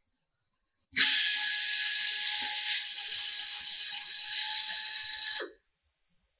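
Robotic welding torch reamer cleaning the torch tip: it runs with a loud hiss and a steady whine, starting suddenly about a second in, dipping briefly partway through, and cutting off about a second before the end.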